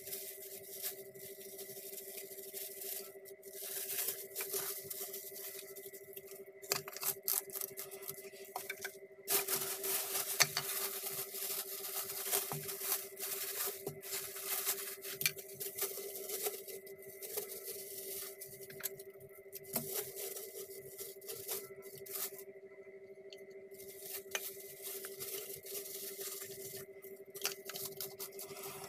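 Clear plastic wrapping crinkling and rustling in irregular bursts as it is handled, with a few sharper clicks, over a steady hum.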